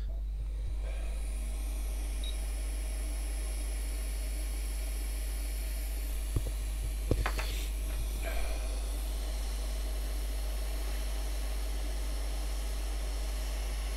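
Hot air rework station blowing a steady hiss of air over a burnt SO-8 MOSFET, heating its solder and flux to desolder it, with a low hum underneath. A couple of small clicks come a little after halfway.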